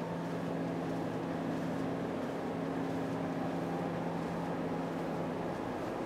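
Steady background hum of a large exhibition hall, with a low droning tone held throughout and no distinct event.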